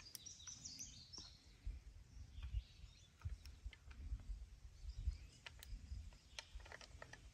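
Faint outdoor ambience with a few bird chirps near the start. Scattered light metallic clicks come from a Ruger New Vaquero single-action revolver as its cylinder is turned and handled to check whether it still turns after a squib load.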